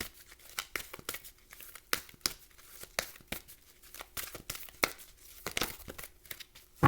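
Tarot or oracle cards being shuffled and handled: a run of irregular sharp card snaps and slaps, with one louder snap near the end.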